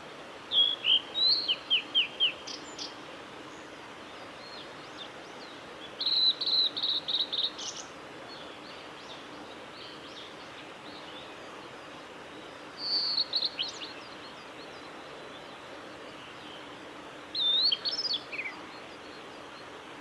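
Male blue-and-white flycatcher singing: four short song phrases of high, clear whistled notes, one roughly every five seconds, over steady background noise.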